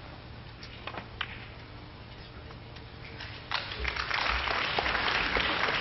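Snooker break-off: the cue tip strikes the cue ball, then sharp clicks of the cue ball hitting the pack of reds, about a second in. From about three and a half seconds in, an audience applauds, loud and steady.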